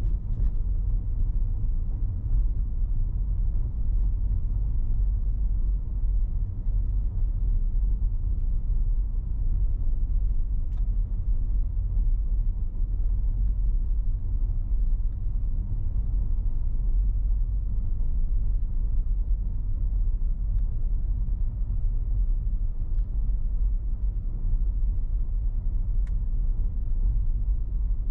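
A car driving: a steady low rumble of road noise picked up by a car-mounted camera, with a couple of faint ticks.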